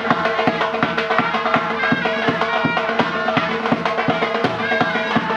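Uzbek surnay, a loud double-reed shawm, playing a held, ornamented melody over a steady drum beat.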